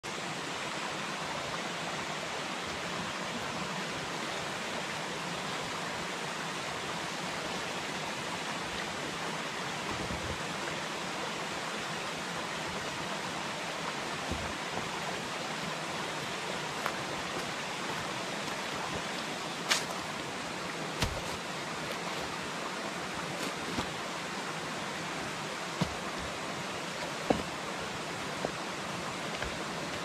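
Steady rush of a shallow stream running over rocks, with a few sharp knocks in the second half as stones are carried and set down on the rocky bank.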